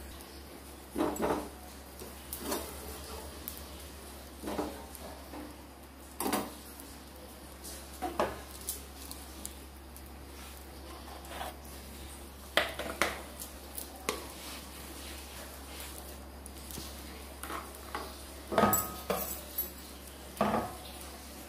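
Steel spatula clinking and scraping on a non-stick dosa tawa in scattered, irregular knocks, over a steady low hum.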